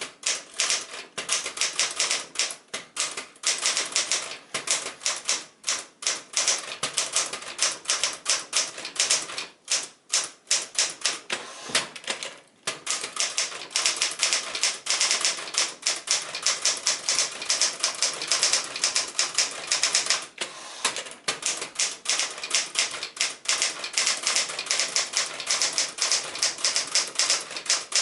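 1965 Smith-Corona Galaxie II manual portable typewriter being typed on: rapid, uneven runs of key and typebar strikes, with short pauses about ten and twelve seconds in.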